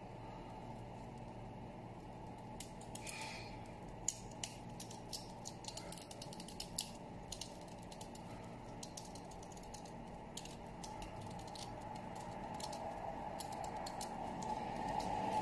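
A small knife cutting petals into a beetroot, a quick scatter of crisp clicks and snaps, thickest in the first half, over a steady low background hum.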